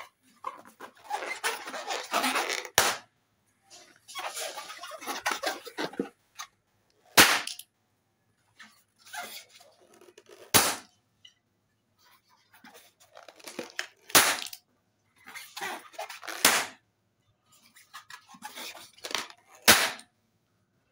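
Latex balloons bursting one after another: six sharp pops a few seconds apart. Between the pops there is softer rubbery rustling as the balloons are handled.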